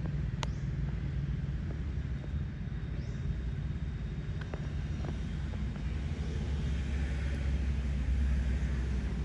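Steady low rumble of an engine running, with a few light clicks over it.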